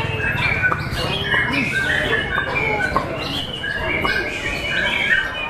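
Many caged songbirds singing at once, white-rumped shamas among them: a dense tangle of overlapping whistles and chirps.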